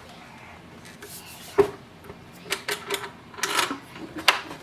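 Parts of a stand mixer being handled and fitted together: several sharp clicks and knocks with some rubbing between them.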